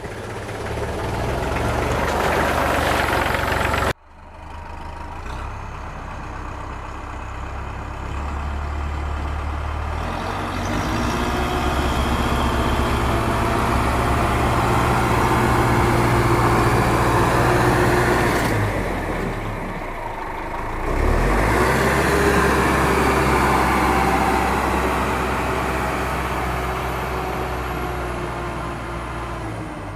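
A motor or engine running steadily with a low hum, its pitch drifting slowly up and down, cut off abruptly about four seconds in and starting again.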